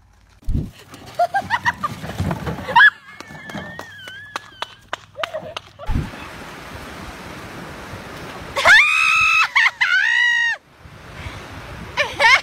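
A thump and rising exclamations, then surf washing on a beach and a woman screaming twice, high and loud, as she falls off a skimboard, with excited voices near the end.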